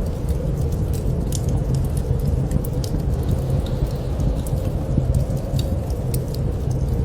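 Wood fire crackling in a fireplace, with scattered sharp pops and snaps over a steady low rumble.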